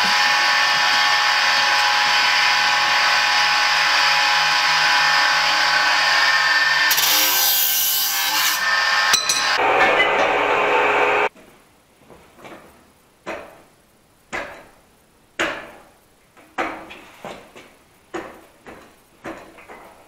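Homemade abrasive chop saw cutting steel tube, the cut-off wheel running under load with a loud, steady grinding whine. The noise cuts off suddenly about 11 seconds in and is followed by a string of irregular sharp knocks, each dying away quickly.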